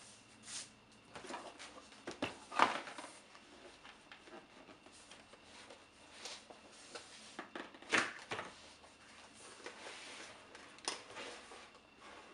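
Cardboard packaging box of a metal detector being handled and opened on a wooden table: scattered rustles, scrapes and knocks of cardboard, the loudest about two and a half seconds and eight seconds in.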